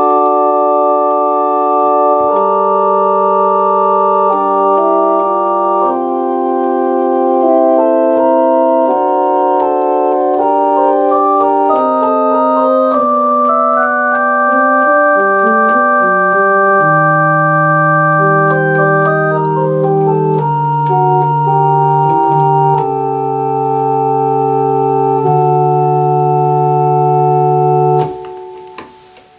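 Two-manual digital home organ playing a slow Baroque piece in sustained, full chords, the voices moving step by step. It comes in at once at full volume, and the last chord is cut off sharply about a second before the end.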